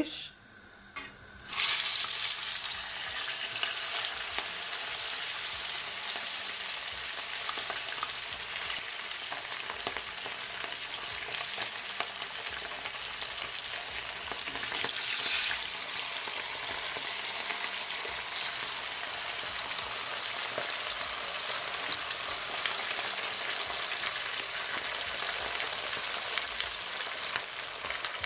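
Whole snapper frying in a pan of hot vegetable oil: a loud, steady sizzle that starts suddenly about a second and a half in as the fish goes into the oil. It swells briefly about halfway through as a second fish is lowered in.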